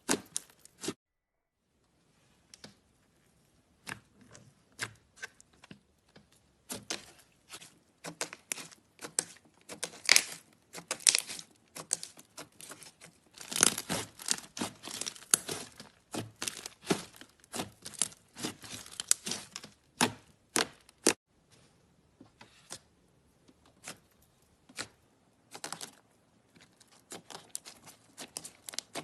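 Slime being squeezed and stretched by hand, giving irregular crisp crackles, pops and crinkles. There is a brief silent gap about a second in.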